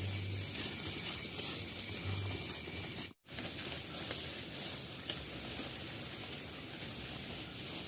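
Steady hissing outdoor background noise with no mooing, cut off by a split-second dropout about three seconds in.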